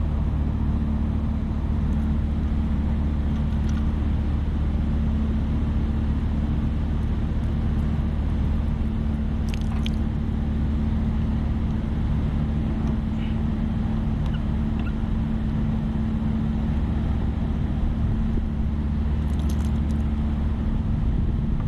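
HVAC unit running with a steady low hum and drone. Two faint short clicks, one near the middle and one near the end.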